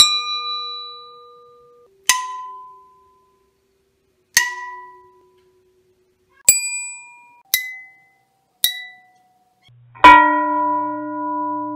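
An 18-inch FN FAL rifle barrel struck with a hammer, six times, each strike ringing like a bell with several overtones that fade over a second or two. The pitch of the ring changes partway through as a flash hider on the muzzle alters the barrel's resonant frequency. About ten seconds in, a strike slowed to quarter speed rings lower and much longer.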